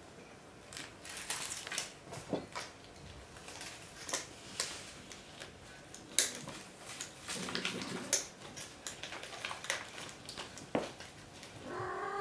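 Burmese kittens at play: scattered clicks, scratches and rustles of paws and claws on a tiled floor and on a backpack and its strap. Near the end a kitten gives one falling meow.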